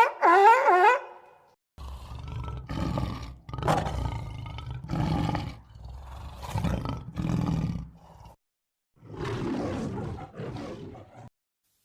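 Big cat roaring and growling in a series of about six rough calls, each a second or so long. It is preceded in the first second by the tail of a high, warbling animal call.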